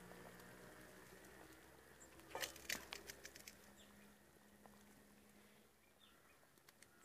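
A metal slotted skimmer knocking against an iron kadai of boiling gravy, a short cluster of clicks and taps about two and a half seconds in; otherwise faint.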